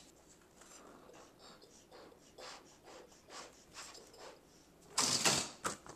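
A child blowing up a rubber balloon: a series of soft breathy puffs of air into it, then a louder short rush of air about five seconds in.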